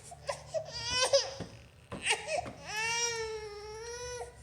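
Eight-month-old baby crying: a short rising cry about a second in, then one long wail held for more than a second near the end, upset during a meal of food she does not want.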